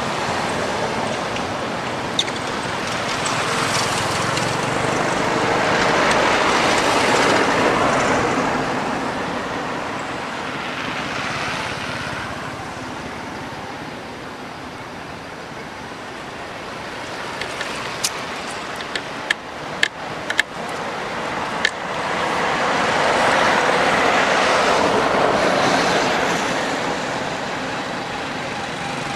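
Road traffic passing: vehicle noise swells and fades, loudest twice, about a quarter of the way in and again near the end. A handful of sharp clicks come about two-thirds of the way through.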